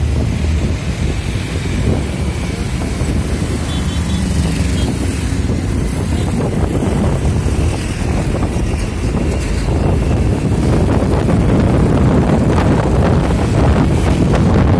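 Wind buffeting the microphone over the steady rumble of a moving vehicle on the road, a little louder near the end.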